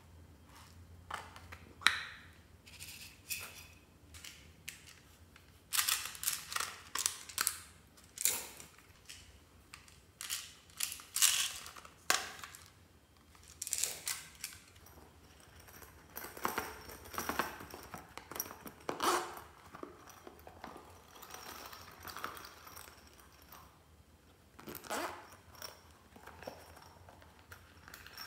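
Plastic toys and cases being opened and handled by hand, with small beads and bits dropping onto slime: irregular plastic clicks, crinkles and taps.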